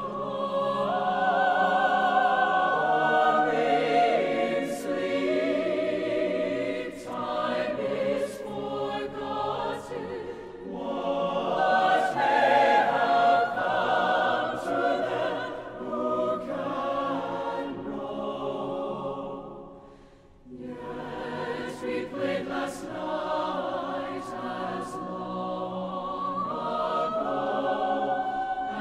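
Mixed a cappella choir singing sustained chords in several voice parts. The sound fades almost to nothing about two-thirds of the way through, then the voices come back in.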